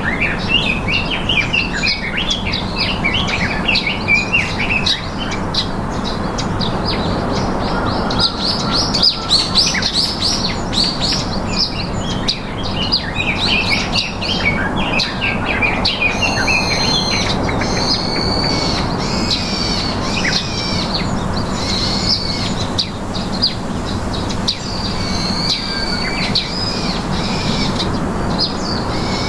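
Small birds chirping and singing, a dense stream of quick high chirps that overlap, giving way in the second half to clearer repeated whistled notes.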